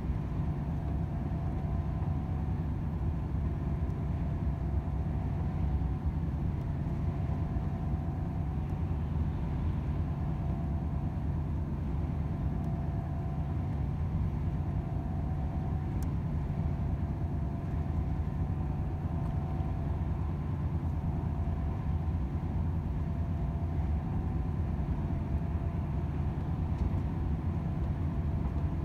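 Volvo FH 500 truck on the move: its 13-litre six-cylinder diesel drones steadily, mixed with road and tyre noise and a faint steady whine.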